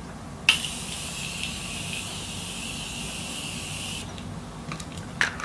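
Makeup face-mist spray bottle spraying onto the face: one steady hiss that starts about half a second in and cuts off about four seconds in.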